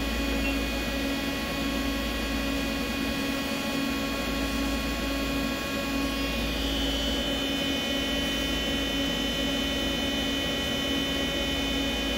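Hardinge GT27SP CNC lathe spindle running steadily at about 3,000 RPM, a continuous machine hum and whine made of several steady tones.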